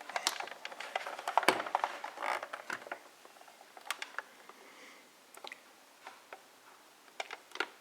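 Light scattered clicks and rustling as plastic wiring-harness connectors and their wires are handled.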